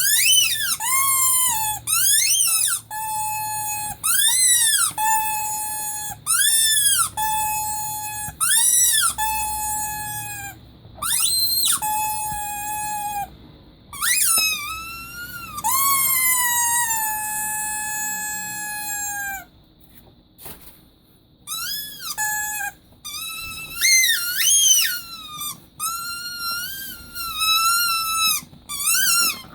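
Rubber teddy-bear squeaky toy squeezed over and over: short squeaks that rise and fall in pitch, mixed with a few long drawn-out squeaks that slide down and hold as the air is pressed slowly out. The squeaks stop briefly about two-thirds of the way through, then resume in quick pairs.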